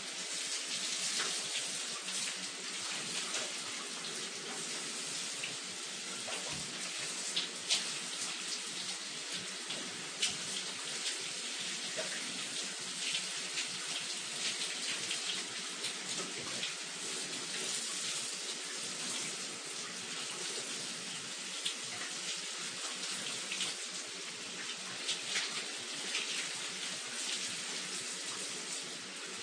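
Shower running: a steady hiss of water spraying and splashing, with scattered brief louder splashes.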